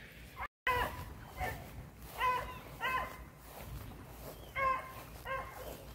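Beagles barking: about six short barks, mostly in pairs, quieter than a close voice.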